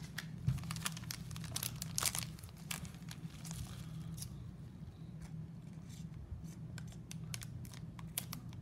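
Foil trading-card pack wrapper crinkling and crackling in gloved hands, with tearing as the hard-to-open pack is worked open. A steady low hum lies under it.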